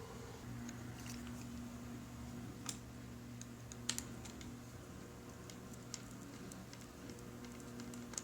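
Scattered, irregular small clicks and taps of hand work on a laptop's parts and tools, over a steady low hum.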